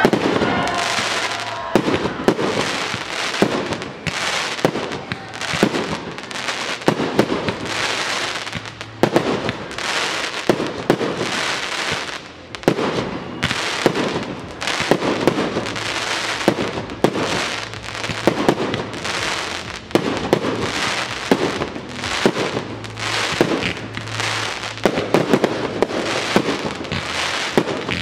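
Aerial fireworks display: a rapid, continuous sequence of shell launches and bursts, one or two sharp bangs a second with crackling between them.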